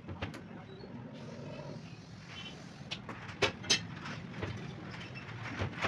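Mirror glass being handled on a wooden workbench: a few sharp clicks and knocks as pieces are lifted and set down, the loudest two close together about halfway through, over a steady low hum.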